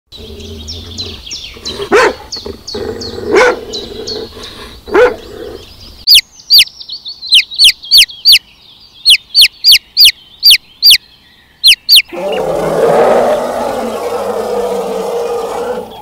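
A run of animal sounds. First a dog barks three times over faint, fast high chirping. Then a newly hatched chick peeps loudly, about fourteen short peeps each sliding down in pitch. From about twelve seconds in comes a loud, rough, sustained call.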